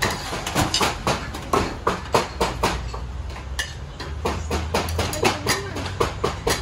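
Metal skimmer scraping and clinking against a large pilaf cauldron as rice is scooped onto a plate: a run of short knocks and scrapes, a few each second.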